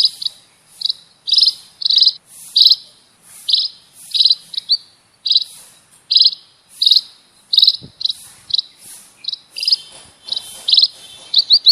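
Munia (Indonesian burung pipit) chirping: short, sharp, high notes repeated about twice a second, often in quick pairs or threes.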